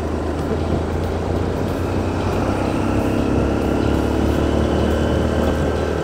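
Motorcycle running steadily while riding along, its engine mixed with wind and road rumble on the onboard microphone.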